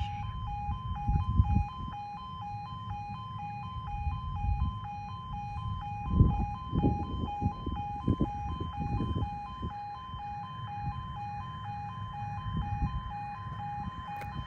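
Level crossing audible warning alarm sounding, a rapidly pulsing two-tone electronic tone, with low rumbling and buffeting underneath that is strongest about six to nine seconds in.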